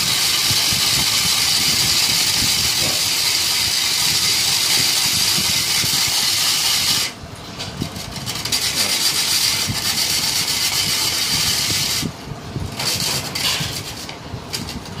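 A loud, steady hiss that stops abruptly about seven seconds in, comes back unevenly, and drops away again about twelve seconds in.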